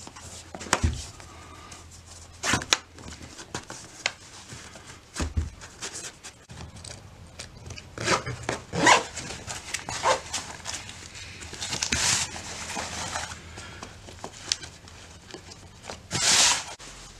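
Hands fitting a gaiter over a leather hiking boot: fabric rustling and rubbing, with scattered clicks and scrapes, and a couple of longer scratchy rasps, about twelve seconds in and again near the end.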